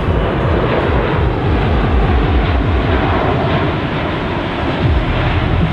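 C-17 Globemaster III's four Pratt & Whitney F117 turbofans running as the jet passes low overhead on a high-speed pass: a steady, loud jet noise with a slowly shifting low rumble.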